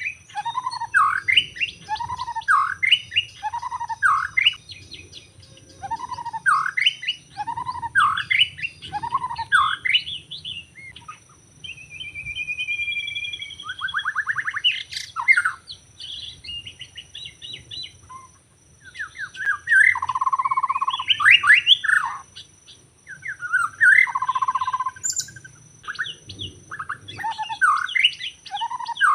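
White-rumped shama singing a loud, varied song: for about the first ten seconds it repeats one short phrase of quick rising whistles, then moves into a changing run of trills, whistles and harsh notes. Two steady faint high tones run underneath.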